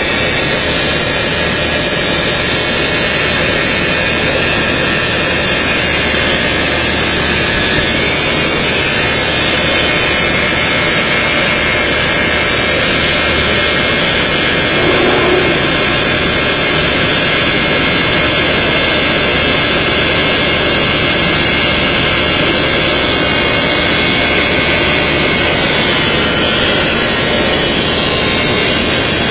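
Seam welding machine running, a loud, steady hum and hiss that holds unchanged throughout.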